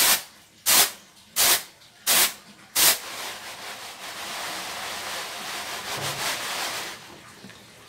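Rice being winnowed on a woven bamboo winnowing tray (nyiru). Grains are flipped up and caught with a sharp rattling swish about every 0.7 s, five times. Then they are swirled around the tray in a steady rustle for about four seconds, fading near the end.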